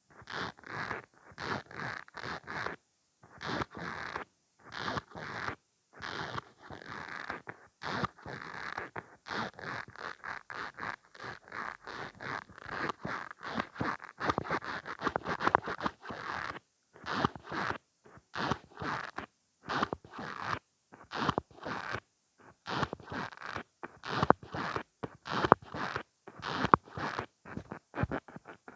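Dailus mascara wand pumped in and out of its tube over and over: a long run of short scraping strokes, about two a second.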